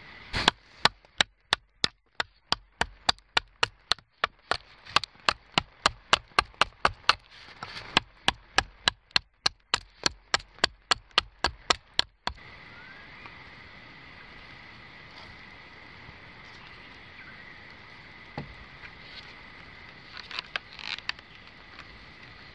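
A blade chopping into a green wooden sapling pole: a steady run of sharp wooden strikes, about three a second, that stops abruptly after about twelve seconds. After that only a quiet steady background with a few small knocks near the end.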